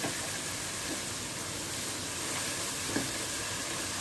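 Spice masala paste sizzling steadily in hot oil in a pan while it is stirred with a spatula, with a couple of light spatula knocks about one and three seconds in. The oil has separated and risen to the surface, the sign that the masala is fried through.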